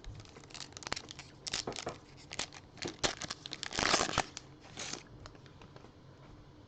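A Topps trading-card pack wrapper being torn open and crinkled in the hands, a run of sharp crackles that stops about five seconds in.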